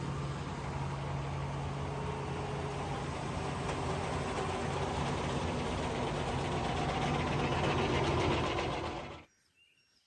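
An engine running steadily with an even low hum, stopping abruptly near the end.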